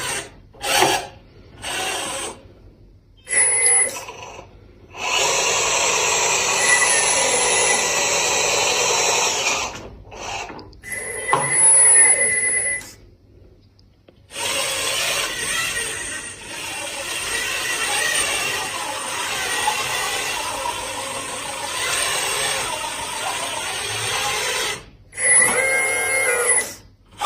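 Electric RC truck's motor and gear drive whirring in runs of several seconds, with a thin high whine over the noise and abrupt stops between the runs.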